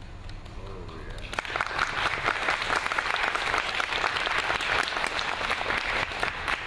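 Audience applauding, breaking out about a second in and carrying on steadily, after a faint low didgeridoo drone dies away.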